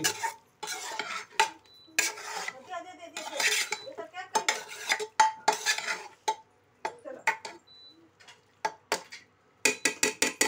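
A spatula stirring and scraping chicken curry in a pressure cooker pot, with irregular scrapes and knocks against the pot. Near the end comes a quick run of sharp taps, about six a second.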